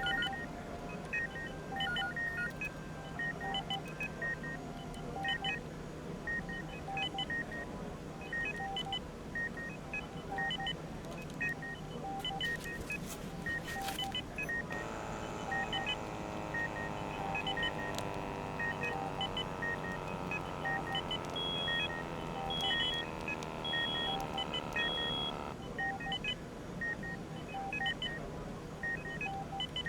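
Hospital ward ambience: medical equipment beeping, with short beeps repeating in a pattern at several pitches over a steady low hum. From about halfway through, a layer of slowly falling tones comes in for ten seconds, and near its end a higher beep sounds four times at even intervals.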